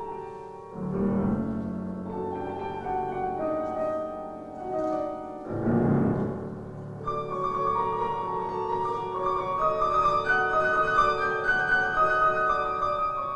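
Concert grand piano played four hands by a piano duo. Deep bass chords are struck about a second in and again around six seconds. From about seven seconds the playing turns fuller and louder in the treble.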